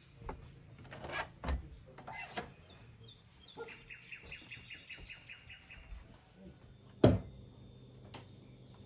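A few footsteps, then a small bird chirping in a quick run of repeated notes for about two seconds. About seven seconds in, the loudest sound: a sharp knock as a clay pot is set down on a stone counter.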